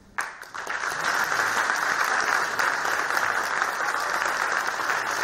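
Audience applauding: the clapping breaks out suddenly just after the start, swells within about a second, then holds steady.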